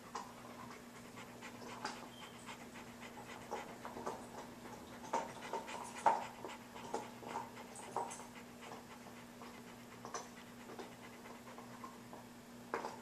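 Rottweiler panting with its mouth open, a quick, rhythmic run of short breaths.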